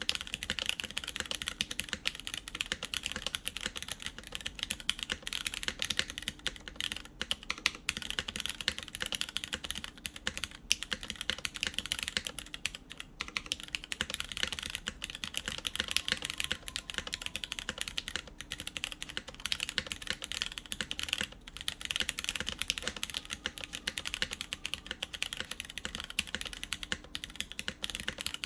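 Fast, continuous typing on a mechanical keyboard with lubed Cherry MX Brown tactile switches on a full aluminium plate, GMK doubleshot keycaps clacking, broken by a few brief pauses.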